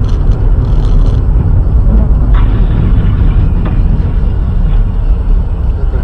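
Loud, steady low rumble of road and engine noise inside a moving car, picked up by its dashcam while it drives along a highway.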